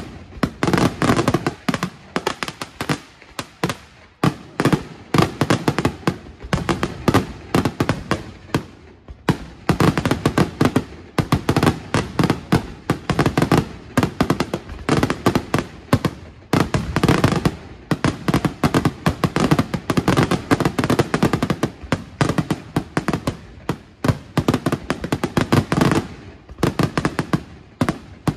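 Fireworks display: a dense, rapid barrage of bangs and crackling reports, many per second, with a few brief lulls.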